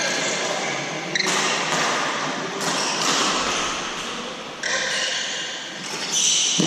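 Badminton shoes squeaking on the wooden court floor in short high squeals, with a few sharp hits, typical of rackets striking the shuttlecock, during a doubles rally.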